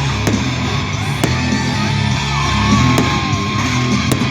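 Loud rock-style music with a heavy, steady low end, with several short sharp cracks over it.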